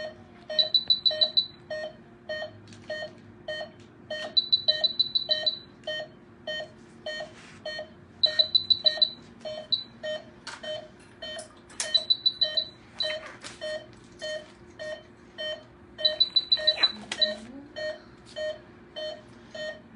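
Veterinary patient monitor beeping with the anesthetized wolf's pulse, about two beeps a second, steady and regular. Every four seconds a louder cluster of rapid high beeps, an equipment alarm, sounds over it.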